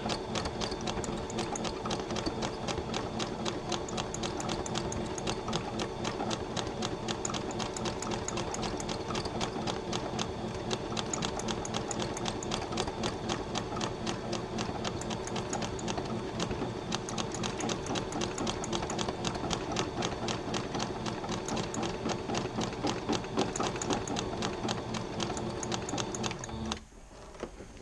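Electronic domestic sewing machine stitching thread into needlepoint canvas at a steady fast speed, a rapid, even run of needle strokes. It stops abruptly near the end when the start/stop button is pressed.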